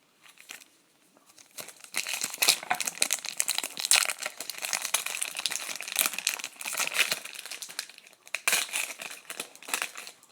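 Crinkling and tearing of an O-Pee-Chee Platinum hockey card pack wrapper being opened by hand, starting about two seconds in and going on in a dense crackle, with a short break near the end.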